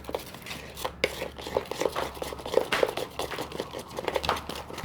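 Glue-and-detergent slime being stirred in a small dish, with irregular small taps, clicks and squishes from the mixing, several a second, as the activator thickens the glue.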